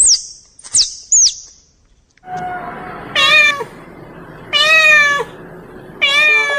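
A few short, very high squeaks falling in pitch in the first second or so, then a cat meowing three times, each meow about half a second long and about a second and a half apart, over a steady background hiss.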